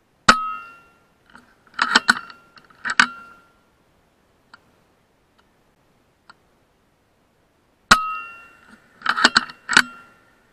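Two shots from a suppressed FX Impact M3 .22 PCP air rifle, each a sharp crack with a brief ring, followed within two seconds by a run of quick metallic clicks as the side-lever action is cycled to chamber the next slug.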